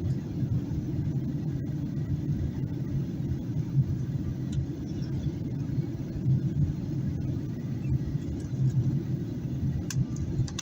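Steady low rumble inside a Boeing 737-800's economy cabin during descent: airflow and CFM56-7B engines heard from a rear window seat. A few faint clicks come near the end.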